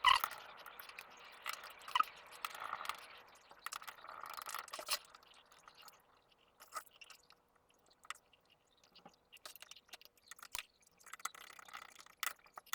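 Small screwdriver driving screws into a laptop's plastic chassis: scattered light clicks and short scrapes of the bit turning in the screw heads, with a quiet pause midway.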